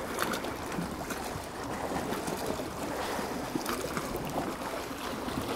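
Sea waves washing steadily against the shore, an even wash of surf noise.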